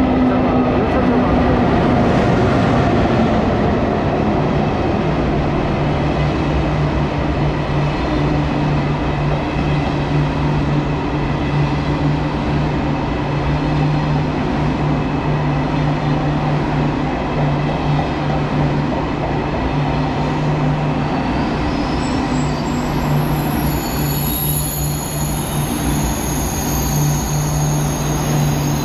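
KTX high-speed train pulling in along the platform and rolling slowly past to a stop, with a steady low hum and rumble. Near the end, as it halts, a high squeal joins in.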